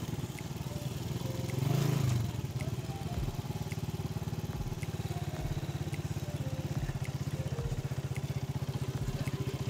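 Honda commuter motorcycle's single-cylinder engine running steadily at cruising speed along a dirt track, heard from the rider's seat. It swells briefly about two seconds in, with a few low thumps later on.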